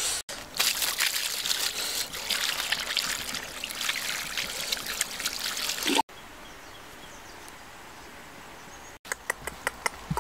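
Liquid trickling and splashing as it is poured from a bamboo tube over cooked fish and leaves in a woven basket. In the last second, dogs eating from the basket with quick, regular wet clicks.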